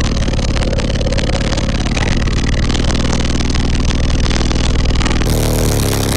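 Bass-heavy music played very loud through four 15-inch Cosmos Audio subwoofers in a fourth-order bandpass wall, heard inside the vehicle's cabin. Deep bass notes are held for seconds at a time, with a gritty, overloaded edge, and change pitch about five seconds in.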